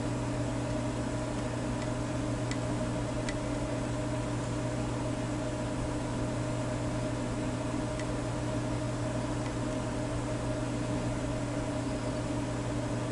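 Steady mechanical hum with a low drone and a few steady higher tones under a light hiss, with two faint clicks about two and a half and three seconds in.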